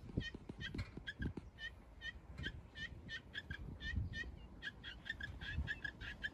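An animal calling in short high notes, repeated several times a second and coming faster about two-thirds of the way through, with low rumbles underneath.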